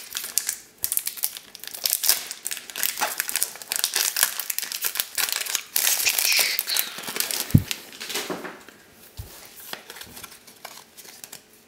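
Japanese Pokémon booster pack wrapper being torn open and crinkled by hand: a dense run of crackling and tearing that thins out after about eight seconds as the cards are slid out. One short low knock about two-thirds of the way through.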